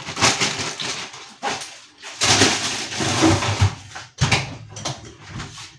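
Plastic freezer bag rustling, with light knocks of kitchen handling, as a handful of frozen green beans is taken from it.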